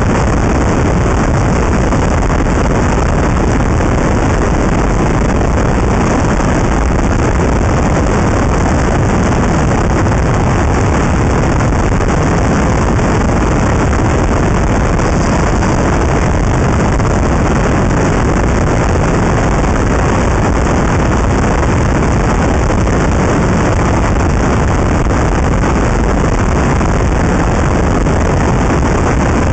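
Steady, loud rush of wind buffeting a camera microphone mounted on the outside of a moving car, mixed with road noise.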